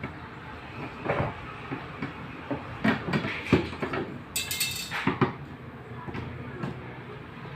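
Irregular knocks and clatter from handling washing machine parts and tools, with a brief high scraping or screeching noise about halfway through.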